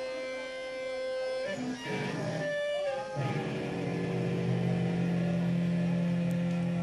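Live punk band's electric guitar ringing out with held notes, sliding in pitch about halfway through, then settling on a steady low sustained note.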